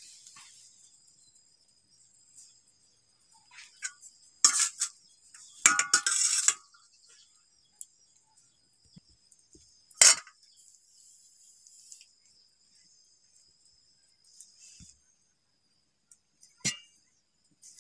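Steel spoon clinking and scraping against a steel plate while scooping scrambled egg filling. The clinks come in a few short clusters, the longest scrape around five to six seconds in, then a single sharp clink about ten seconds in and another near the end.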